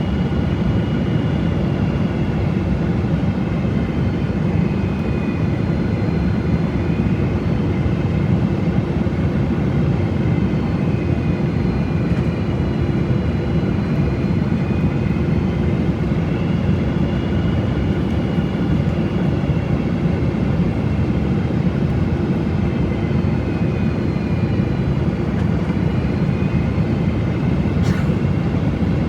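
Steady roar of engines and airflow inside the cabin of a Boeing 777-200 airliner, with faint high engine tones slowly wavering in pitch; a single short click near the end.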